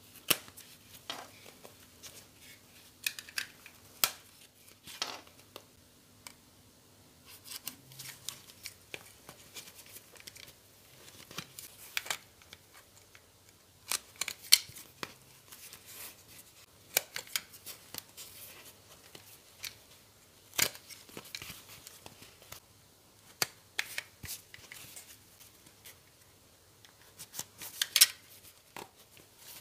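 Knife blade cutting through the old stitching threads in a leather wallet's seams: irregular sharp snips and clicks, often several in quick succession, with short pauses between.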